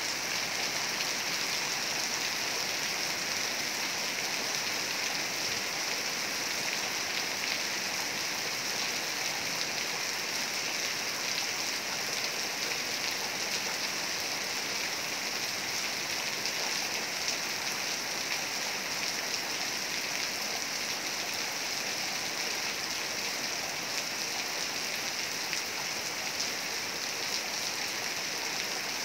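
Heavy rain falling steadily: a dense, even hiss of rain with no lulls.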